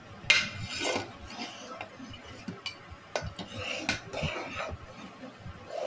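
Spoon stirring and scraping through curdling milk in a stainless steel pot, clinking irregularly against the sides and bottom, with one loud clink about a third of a second in. It is the constant stirring that keeps the splitting milk (chhena) from sticking to the bottom.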